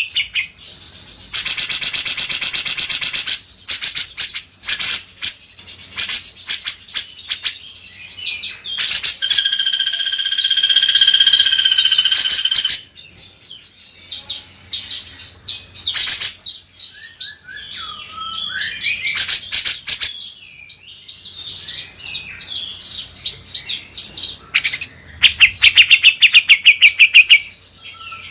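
Cucak jenggot (grey-cheeked bulbul) and kinoi songbirds singing: loud, rapid chattering trills near the start and near the end, a long warbled phrase in the middle, and scattered sharp chirps and short gliding calls between.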